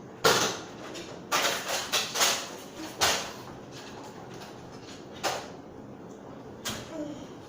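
A series of sharp knocks and thuds, about six in all: the loudest about a quarter second in, a quick cluster between one and two and a half seconds, then single hits at about three seconds, five seconds and near the end.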